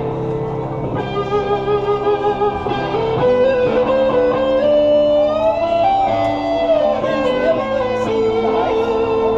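A live rock band playing an instrumental passage, led by an electric guitar. It holds long notes, with slow glides up in pitch and back down, over the band.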